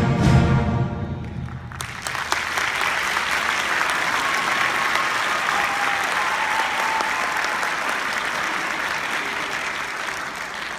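A school concert band's final held chord rings out and stops, then the audience breaks into steady applause that tapers off near the end.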